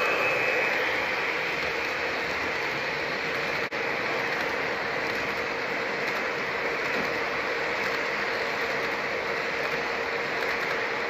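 O gauge model freight train with double-stack container well cars rolling past close by: a steady mechanical whir and clatter of wheels on the rails, with a higher whine from the passing diesel locomotive fading in the first second. The sound drops out for an instant about four seconds in.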